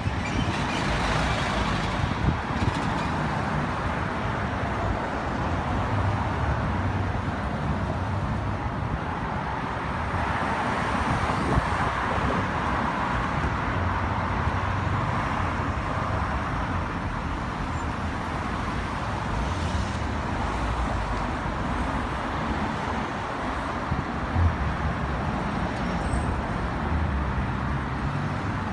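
Steady city street traffic: cars driving past on a busy road, their engine and tyre noise rising and falling.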